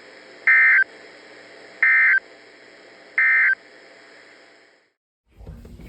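Emergency Alert System end-of-message signal: three short, identical bursts of warbling digital data tones about a second and a half apart, over a steady hiss, marking the end of the tornado warning. Near the end the hiss cuts out briefly and a new, louder low-pitched sound begins.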